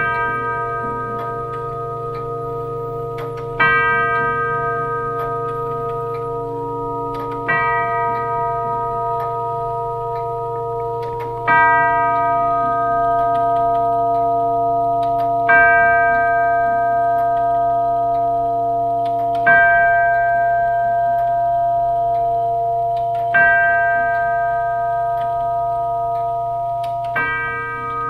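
Herschede tubular chime clock striking the hour on its tubular bells: a slow, even series of single strikes about four seconds apart, eight of them here, each ringing on into the next.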